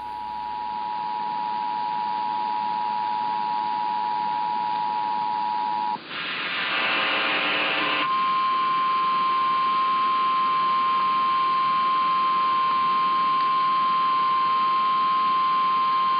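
Emergency Alert System two-tone attention signal sounding steadily over a radio broadcast with background hiss, cutting off about six seconds in. After about two seconds of buzzy noise, a single steady tone starts: the NOAA Weather Radio 1050 Hz warning alarm tone, which announces the National Weather Service severe thunderstorm warning.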